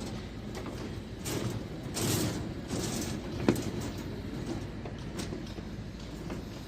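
Building-site work sounds: scattered knocks and scraping over a low steady rumble, with one sharp knock about halfway through.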